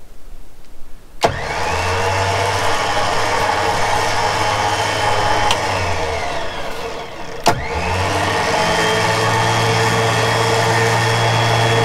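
Jeep Wrangler's winch running under load, dragging a downed tree off the trail: two long pulls of about five seconds each, each starting abruptly with a click and a falling whine, with a short pause between them.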